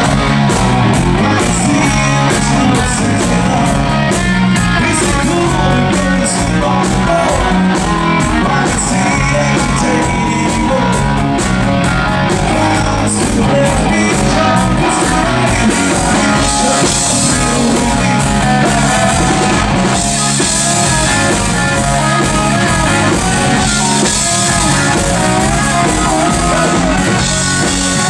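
A rock band playing loud and live: electric guitar, electric bass and drum kit, with a man singing into a microphone.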